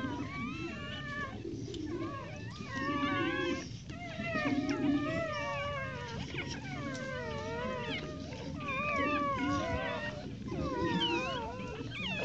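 A litter of newborn bully-breed puppies squealing and whining as they nurse, several high, wavering cries overlapping almost without a break.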